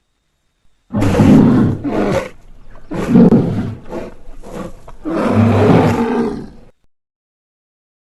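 Giant grizzly bear creature roaring: three loud roars, each one to two seconds long, with short gaps between.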